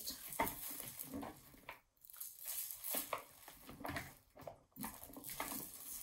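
Wild birdseed rustling and scattering in a clear plastic bowl as fingers press it onto a shortening-coated pinecone: irregular small rustles and light taps.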